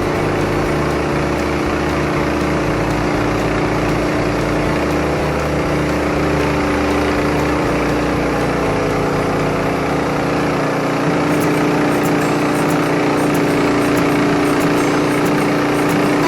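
Wood-Mizer LT15 START band sawmill running steadily. About eleven seconds in, the sound shifts and grows a little louder, with faint high ticking.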